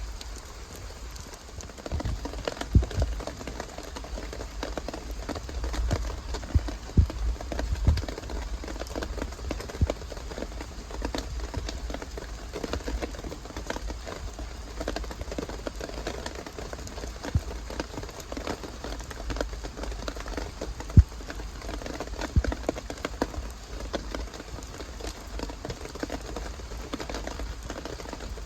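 Rain falling and dripping on surfaces, with scattered sharp taps and knocks throughout.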